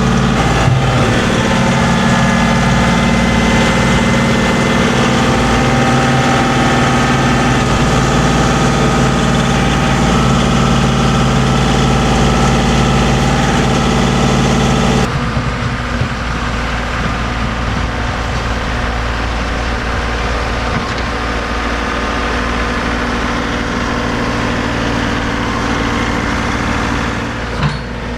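Compact tractor's diesel engine running steadily while snow is plowed. About halfway through, the sound changes abruptly and the low hum thins out.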